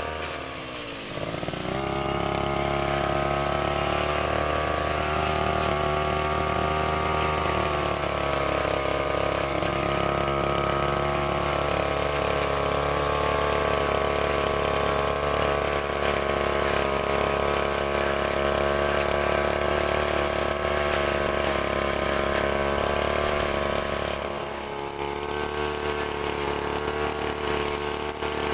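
STIHL FR3001 backpack brushcutter engine running. Its revs dip and climb again right at the start, then hold high and steady. Near the end they drop to a lower, steady speed.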